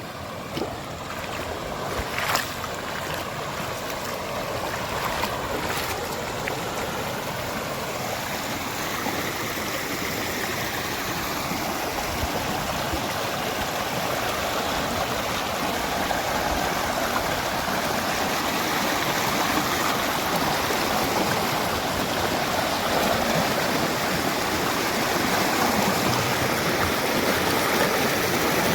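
Rushing water of a hill stream or waterfall, a steady hiss that slowly grows louder, with a few short clicks in the first few seconds.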